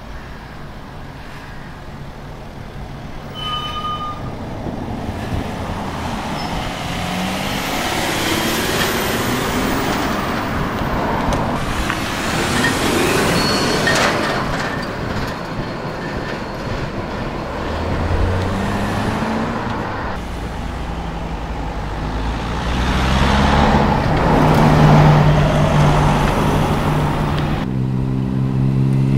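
Several cars driving past one after another, their engine and exhaust notes rising as they accelerate and swelling louder toward the end. Near the end a close engine holds a loud steady note.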